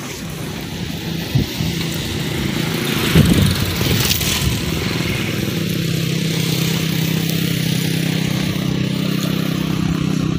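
A small engine running steadily, growing louder over the first few seconds and then holding at a constant pitch.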